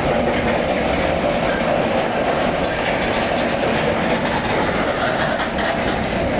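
Freight train's covered hopper cars rolling past close by: steel wheels running on the rail, a steady, loud clatter with no let-up.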